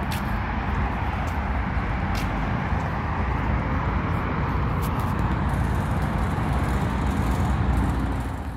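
Steady outdoor city traffic noise, a low rumbling hum, with a few faint clicks.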